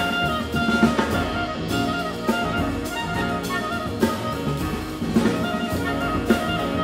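Small jazz band playing: a clarinet melody over piano chords, plucked double bass and a drum kit with cymbals.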